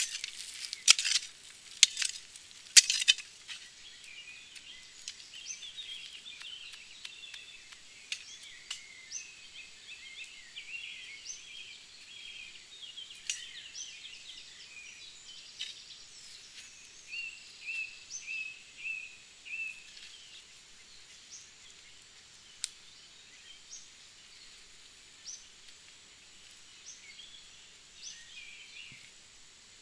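A few scraping strokes of a folding shovel digging into forest soil in the first three seconds, then songbirds chirping and singing.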